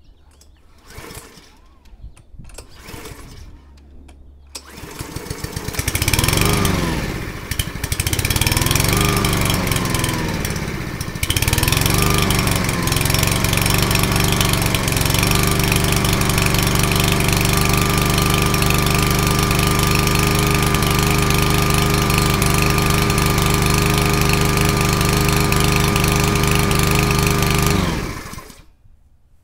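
A 159cc Honda single-cylinder engine on a Troy-Bilt self-propelled lawn mower, on its first start after assembly with fresh oil and gas. After a few faint strokes it catches about four seconds in and runs unevenly, its pitch rising and falling for several seconds, then settles to a steady, loud run. It stops near the end.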